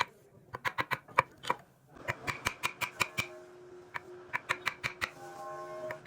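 Quick runs of sharp taps on wood, about five or six a second, in several bursts with short pauses, as a joint or chisel is worked by hand. A faint steady tone sounds in the background through the middle.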